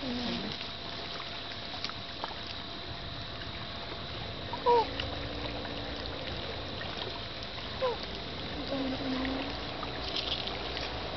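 Steady water noise around a river boat. Twice, about three seconds apart, a short sound falls in pitch over it; the second is weaker.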